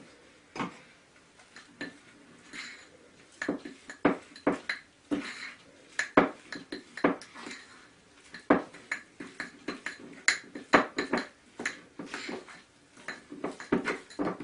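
Metal spoon stirring a thick baking-soda-and-liquid-soap paste in a ceramic bowl, clinking against the bowl in irregular knocks. The knocks are few at first and come several a second from about three and a half seconds in.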